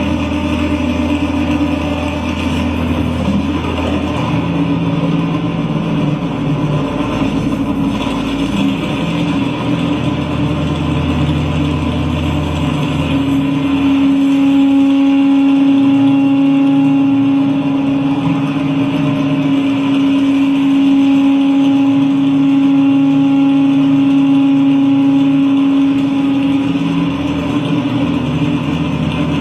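Live industrial noise music: layered electronic drones. A deep low drone in the first half gives way about halfway through to a louder steady droning tone, with a stuttering lower drone switching on and off underneath.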